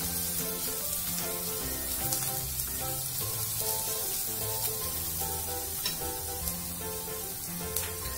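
Chopped onion and ginger-garlic paste sizzling in hot oil in a non-stick kadhai, stirred with a silicone spatula, under background music with steady stepping notes.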